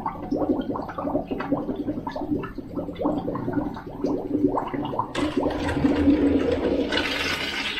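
Air and water sputtering in irregular pops out of a radiant floor heating loop's purge line as the loop is bled of air bubbles, over a steady low hum. About five seconds in it turns into a rushing stream, louder near the end.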